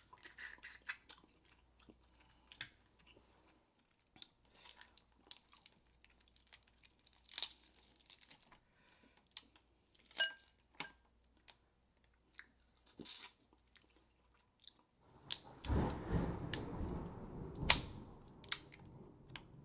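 Close-miked eating: chewing, with scattered sharp cracks and snaps of snow crab leg shells being broken apart by hand. Near the end a louder, denser stretch of crackling and rustling lasts about three seconds.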